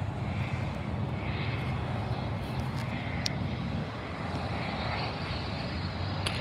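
Engines of a distant airplane on approach to land, a steady low rumble.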